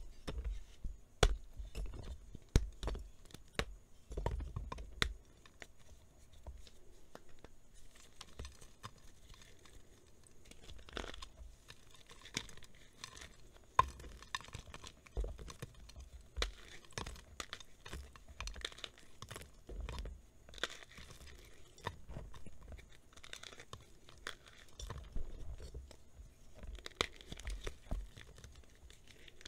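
Blocks of reformed plain gym chalk being snapped and crushed by hand. There are sharp cracks in the first five seconds, then quieter crunching and crumbling of the dry chalk.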